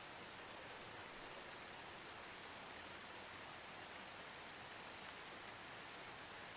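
Faint, steady hiss with no distinct events, like light rain or background noise.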